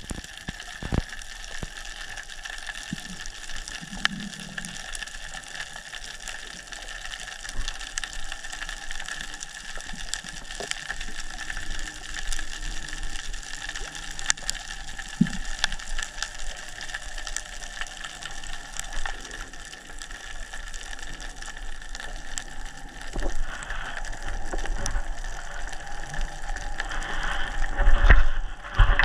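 Underwater sound picked up by a GoPro in its waterproof housing: a steady hiss scattered with sharp crackling clicks. Near the end it grows louder, with low rumbling and a few knocks.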